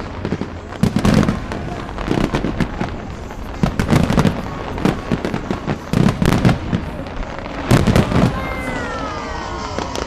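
Large display fireworks going off in a rapid series, a loud boom with crackle roughly every one to two seconds; near the end several tones fall in pitch together.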